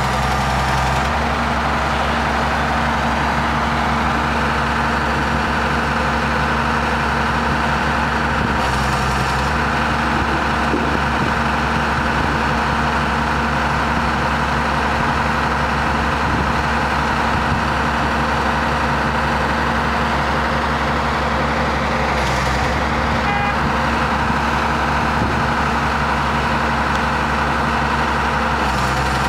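Diesel engines of two crawler excavators running steadily as they hold a steel beam between them, with brief shifts in the engine note a few times.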